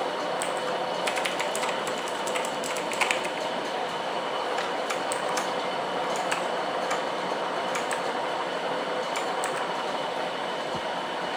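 Scattered, irregular clicks from a mechanical keyboard with Kailh Blue switches, a few at a time, over a louder steady background hiss and hum.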